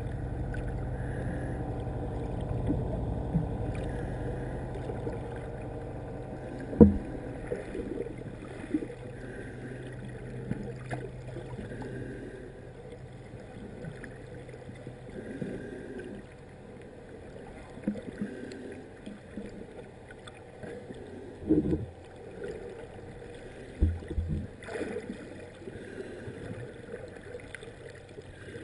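Muffled underwater noise picked up by a submerged camera: a steady low rush of water with a low hum that fades over the first several seconds, and a few dull knocks and thumps.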